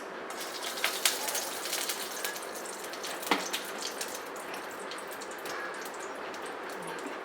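Whole cloves sizzling in hot mustard oil in a pan, crackling with sharp pops over the first few seconds before settling into a steadier hiss.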